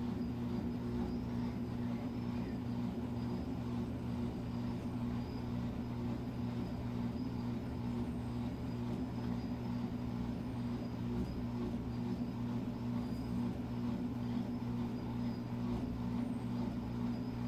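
Midea Wave-Agitator top-load washing machine running with its drum spinning, a steady motor hum with constant low tones, during a spray rinse in which clean water is sprayed over the clothes.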